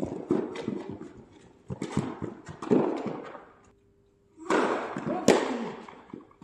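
Tennis rally: sharp racket strikes on the ball, ball bounces and scuffing footsteps on the court, at irregular intervals of about a second. The loudest crack comes about five seconds in.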